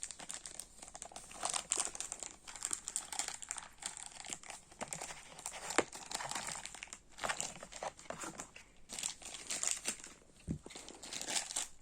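Plastic packaging crinkling and being torn open by hand, irregular rustling with small crackles throughout.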